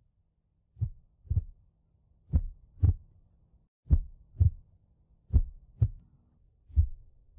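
Heartbeat sound effect: slow, paired lub-dub thumps, a pair about every one and a half seconds, louder from about two seconds in, over a faint low hum.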